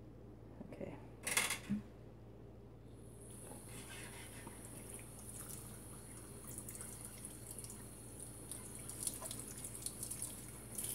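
Kitchen tap turned on about three seconds in and running into the sink, water splashing and dripping off wet paper and a mesh strainer. A short sharp noise comes a second or so before the water starts.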